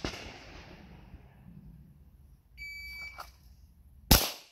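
A shot timer's start beep, one steady high-pitched tone of about half a second, then about a second and a half later a loud, sharp pistol shot, the first of two shots fired from a 9mm Glock 17 drawn from concealment.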